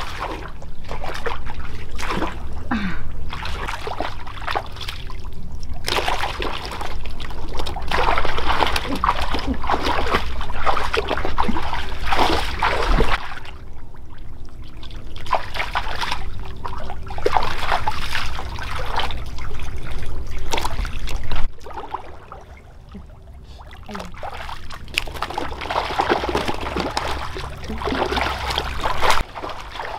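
Water splashing and trickling in irregular bursts, with a low steady rumble underneath that stops about two-thirds of the way through.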